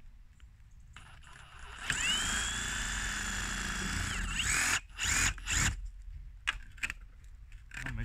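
Ridgid Octane cordless reciprocating saw spinning up about two seconds in, running steadily for about two and a half seconds and winding down. Then it runs in several short bursts of the trigger.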